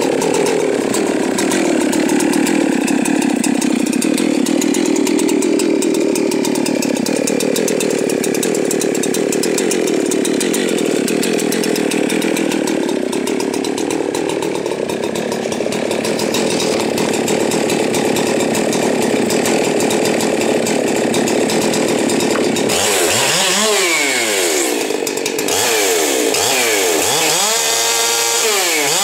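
Husqvarna 372 XP two-stroke chainsaw running loud and continuously, its pitch wandering slowly. In the last few seconds it is revved up and down several times in quick succession.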